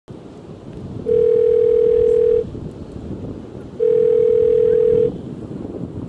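Telephone ringback tone, the caller's-end signal that the called phone is ringing: two long steady rings, each about a second and a quarter, about a second and a half apart, over a low rumble of wind noise.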